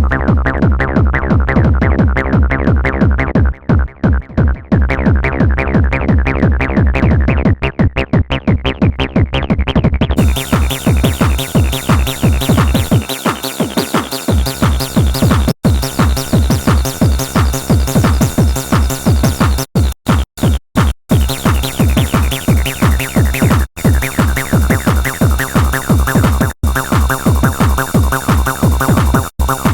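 Electronic dance music: a driving techno/trance track with a steady pounding kick drum. The highs are filtered out for about the first ten seconds and then open up, the bass drops out for about a second a third of the way in, and the track cuts out for short moments several times in the second half.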